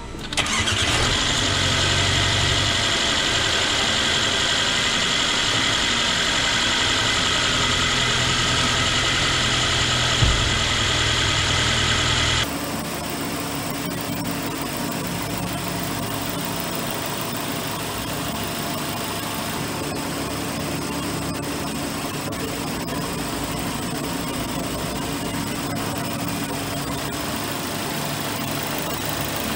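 Mercedes M260 2.0-litre turbocharged four-cylinder engine coming to life just after the start and running steadily at idle, with a short knock about ten seconds in. About twelve seconds in the sound drops suddenly to a quieter, steady idle.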